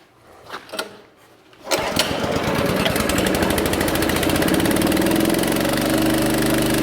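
Pressure washer's engine starting a little under two seconds in, then running steadily.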